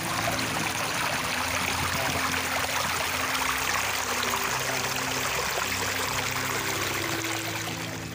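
Shallow water running over a rock and through grass, a steady rush.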